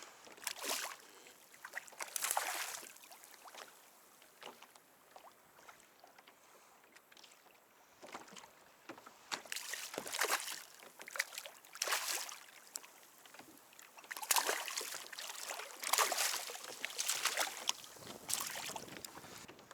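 Kayak paddle strokes splashing in the water, in irregular bursts with a quiet wash of water between them.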